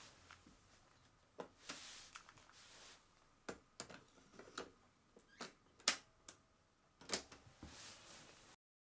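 A scattered series of sharp clicks and light knocks, about a dozen, with soft rustling between them: handling noise from something being picked up and worked by hand.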